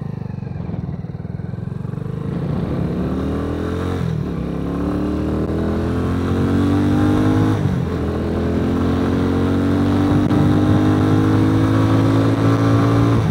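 RPS Condor 150cc Grom-clone motorcycle's single-cylinder engine accelerating up through the gears. The pitch rises, drops at a gear change about four seconds in and again about seven and a half seconds in, then climbs again and drops back near the end.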